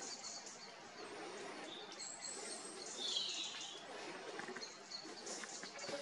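Faint outdoor background noise with a few short, high bird chirps; one louder call about three seconds in falls slightly in pitch.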